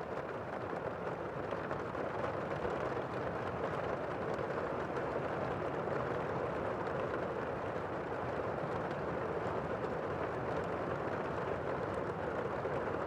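Steady rain falling, an even continuous hiss with no thunder or other distinct sounds.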